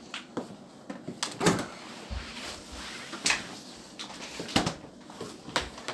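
About five separate knocks and thumps, the loudest about a second and a half in: packages of bread and groceries being handled and set down on a wooden table.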